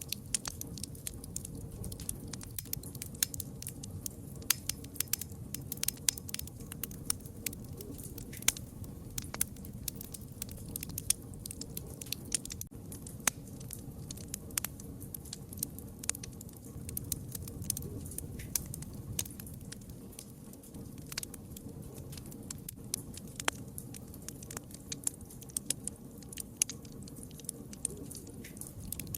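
Wood fire crackling: many sharp pops, several a second, over a steady low noise of the burning.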